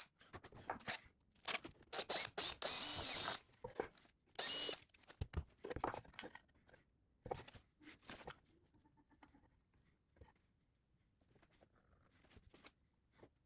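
Workshop handling noises on a small wooden workpiece: bursts of scraping and rustling with scattered clicks and light knocks, dying down to faint, sparse sounds in the second half.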